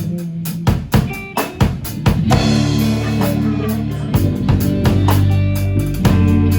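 Band music with drum kit, bass and electric guitar playing at a steady beat.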